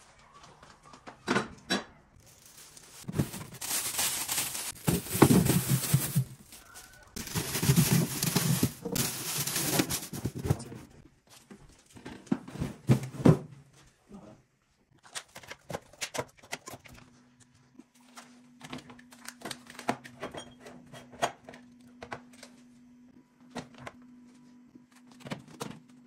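Groceries and food containers being handled in an open refrigerator: several seconds of loud plastic rustling, then a run of light clicks and knocks as jars, boxes and plastic tubs are set down on the shelves.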